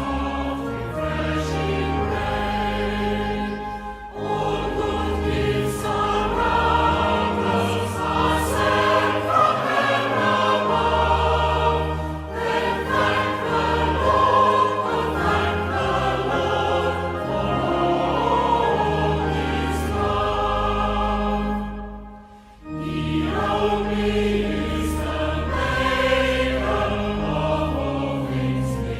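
A hymn sung by many voices over sustained accompanying chords, with a short break about 22 seconds in before the singing resumes.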